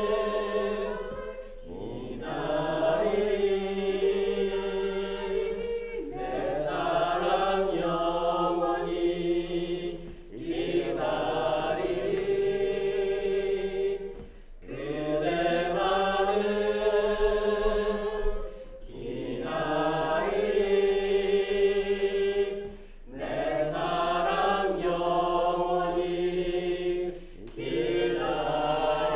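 A small group of men and women singing together in slow phrases of about four seconds, holding long notes, with short breaks for breath between the phrases.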